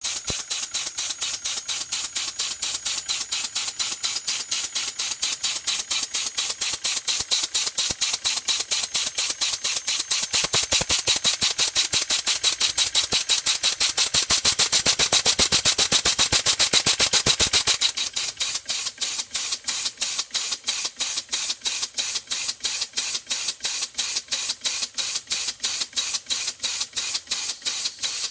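Converted 1918 Brunner air compressor running as a compressed-air engine, each stroke sending out a hissing exhaust puff in a fast, even rhythm. About eighteen seconds in the puffs become quieter and a little slower.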